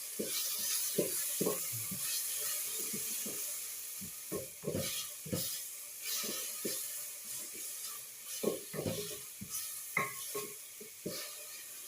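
Food sizzling in a hot cooking pot with a steady hiss, while a utensil stirs it, scraping and knocking against the pot many times at an uneven pace.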